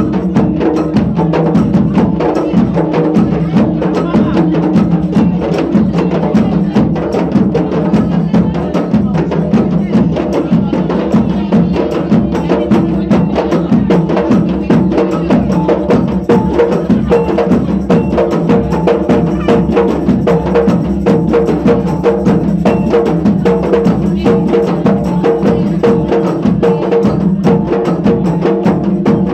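Music with a fast, dense percussion rhythm of many sharp hand-struck beats over steady pitched tones.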